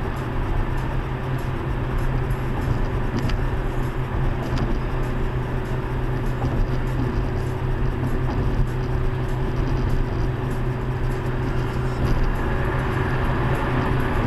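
Steady road and engine noise inside a car cruising at highway speed: an even rumble with a strong low hum that does not change.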